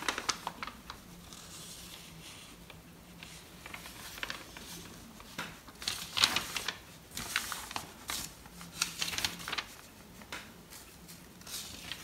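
Electriq EQDWTTGF mini tabletop dishwasher running its wash cycle: a faint steady pump hum under uneven bursts of water spray pattering against the glass door and dishes.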